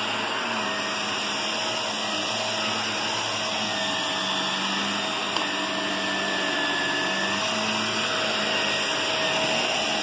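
Shark upright vacuum cleaner running steadily while it is pushed across carpet, with one brief click about halfway through.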